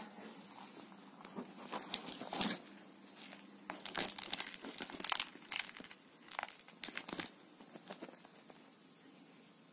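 A cat wrestling a fur-covered toy mouse on a fabric sofa cover, its claws scratching and rustling against the upholstery and the toy in irregular bursts, busiest about halfway through.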